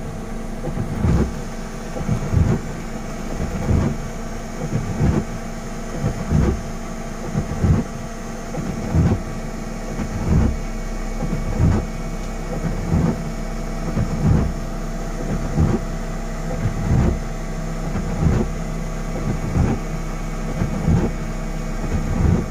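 Vehicle engine idling steadily inside the cab, with a regular low thump about every 1.3 seconds, likely the windshield wipers reaching the end of each sweep.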